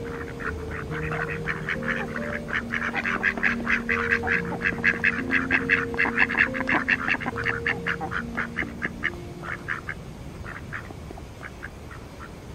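Mallard ducks quacking as a flock, a fast run of short quacks that thins out to scattered calls near the end.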